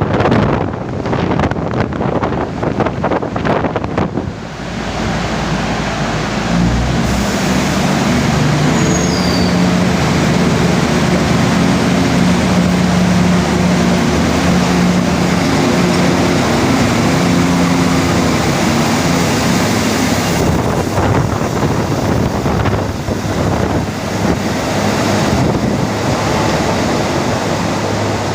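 Wind gusting on the microphone in rain, then the Daewoo diesel locomotive's engine comes in about five seconds in with a steady pitched drone as the train pulls out. The drone gives way to rushing wind and rain noise after about twenty seconds.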